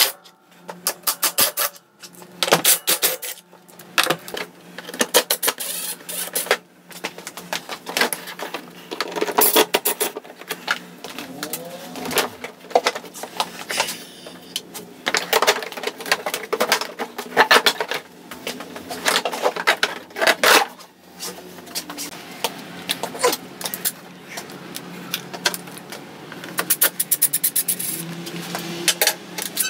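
Cordless impact driver rattling in short repeated bursts as it backs out screws and bolts, with knocks and clatter of plastic body panels being handled between the bursts.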